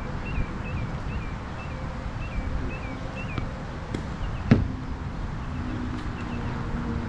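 A single sharp pop of a tennis ball being struck, about halfway through, over a steady low background rumble, with a few fainter clicks around it.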